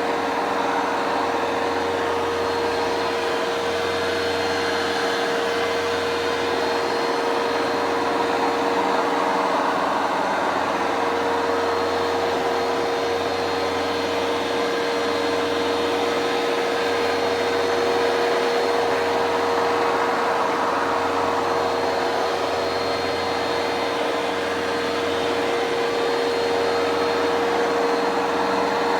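Hoover Dual Power Max carpet cleaner running steadily, its motor giving a constant whine over a broad rushing hiss that swells and eases slowly.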